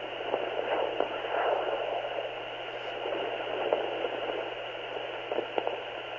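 Handheld fetal Doppler's speaker giving out a steady static hiss that swells and fades as the probe is moved over the belly searching for the fetal heartbeat, with a couple of short clicks near the end.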